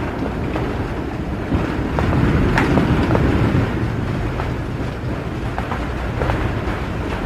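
Thunderstorm: a low, continuous rumble of thunder with rain and scattered drip ticks, one sharper tick about two and a half seconds in.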